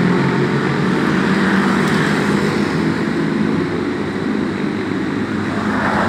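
Road traffic passing on a street: a steady low drone of vehicle engines and tyre noise.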